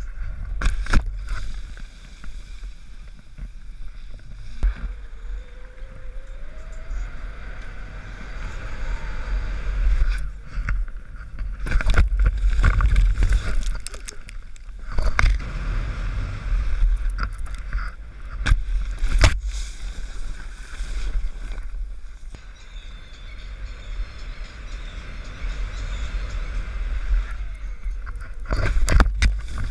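Wind rumbling and buffeting on a helmet-mounted action camera's microphone as a skier rides the snow ramp and jumps, with skis sliding on snow. Sharp knocks and thumps come several times, including near the end as the skier lands on a big inflatable airbag.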